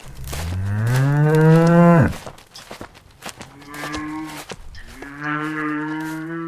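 A cow mooing three times: first a long, loud moo that rises in pitch, then a short fainter one, then a third moo near the end.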